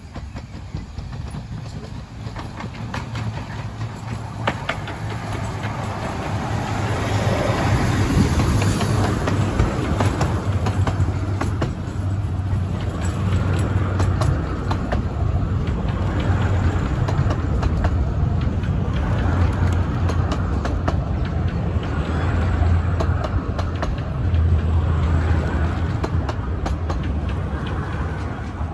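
A 15-inch-gauge miniature steam train approaching and running past close by. It grows louder over the first several seconds, then a long rake of coaches rolls by with a steady low rumble and wheels clicking on the rails.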